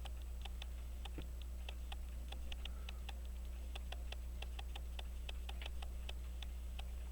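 A timepiece ticking steadily and fast, about five ticks a second, over a low electrical hum.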